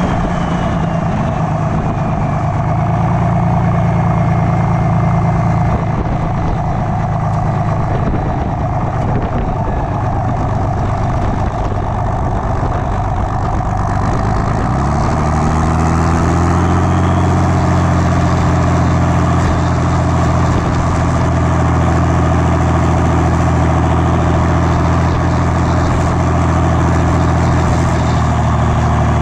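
6.7 Cummins diesel race engine running at low speed, with a high whine sliding down in pitch over the first several seconds. About halfway through, the engine note rises and then holds steady at the higher pitch.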